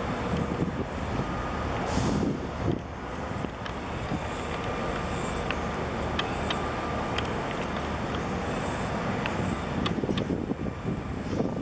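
Steady low rumble of distant engines, with a few faint clicks.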